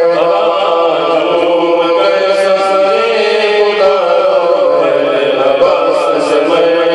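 A man singing an unaccompanied Urdu naat into a microphone in a chanting style, with long held and gliding notes. A steady low drone runs underneath.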